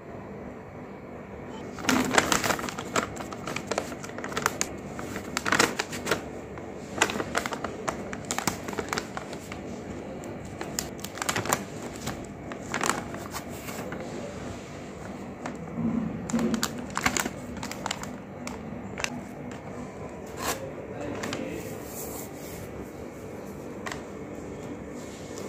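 Baby-wipes packs being handled: plastic flip-top lids snapping open and the soft plastic packaging crinkling as wet wipes are pulled out, heard as irregular sharp clicks and rustles that start about two seconds in.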